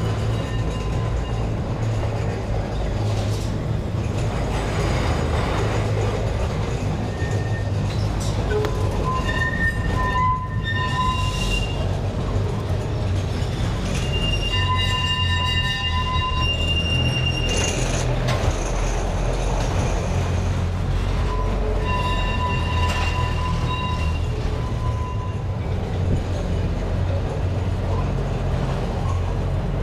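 Funicular car running along its street rails, heard from aboard: a steady low rumble of wheels on track, with spells of high-pitched metal-on-metal wheel squeal, about a third of the way in, around the middle and again later.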